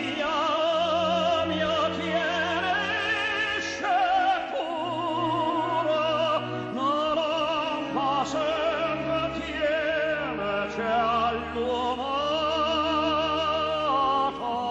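Background music: an operatic voice sings long notes with heavy vibrato over a steady orchestral accompaniment.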